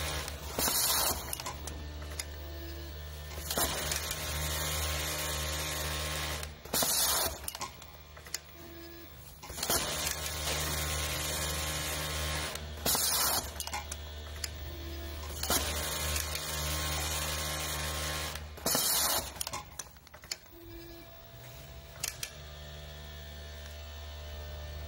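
Automatic glove overlock sewing machine running with a steady hum. Every few seconds, about every six, comes a short sharp hiss, with smaller hisses and brief tones in between, as the machine cycles through each glove cuff.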